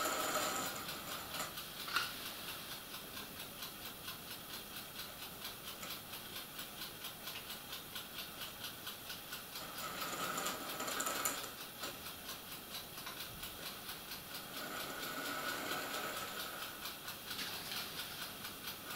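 Busch H0f field-railway model locomotive running slowly with peat wagons on a short test track: a small electric motor whine that comes and goes, over a steady ticking of about two or three a second. The running is still rough and wobbly.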